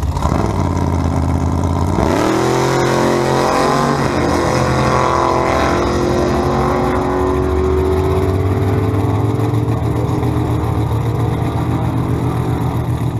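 Twin-turbo big-block Chevrolet V8 drag car launching off the start line. After about two seconds of held revs, the engine note climbs sharply and stays at high revs as the car pulls away down the strip.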